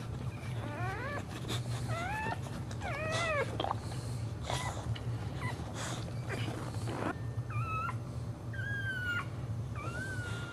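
Boxer bitch in labour whining: a run of short whines that rise and fall, then longer, held whines near the end as the puppy is delivered. A steady low hum runs underneath, with a few soft knocks.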